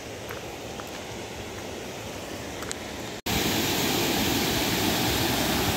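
A faint steady outdoor hiss with a few light clicks, then about three seconds in a sudden cut to the loud, steady rush of a waterfall pouring over its rock lip.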